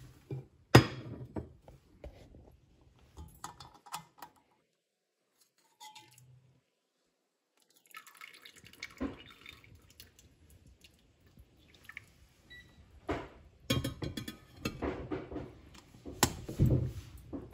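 Metal rice container knocking and scraping against the pressure cooker and other dishes as it is lifted out and handled. There is a sharp clink about a second in, then a quiet pause, then a busier run of clatter with several knocks near the end.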